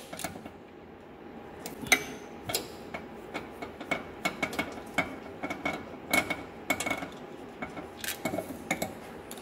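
Hand ratchet clicking as a bolt is run in to fasten a rock light, heard as irregular short metallic clicks a few times a second, mostly from about two seconds in.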